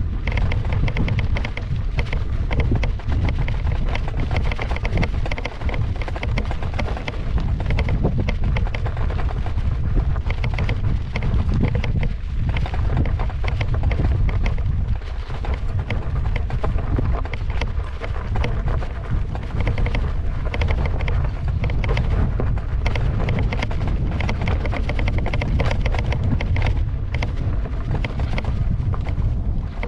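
Wind buffeting the microphone of a camera on a rider moving downhill, a constant low rumble, with a steady patter of small clicks and rattles from an electric unicycle's tyre running over loose gravel and rocks.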